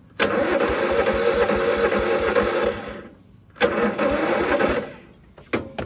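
Kubota riding mower's engine cranking on the starter twice without catching, about three seconds and then about one second, followed by a short click near the end: the mower won't start.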